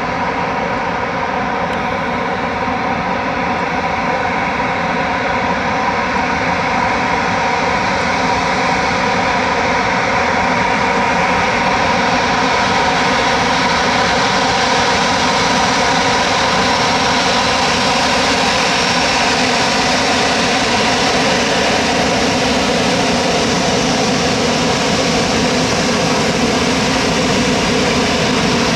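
Airbus A319's two jet engines spooling up and running at takeoff thrust, heard in their jet blast. A loud, steady rush with a hum of engine tones, growing louder and brighter over the first ten seconds or so, then holding.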